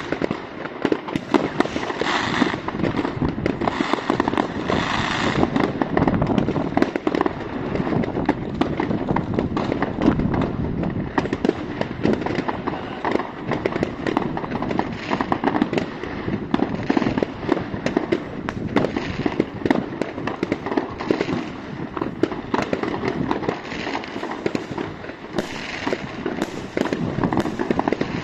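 Fireworks going off without a break: a dense barrage of firecracker bangs and crackling, with aerial shell and rocket bursts mixed in.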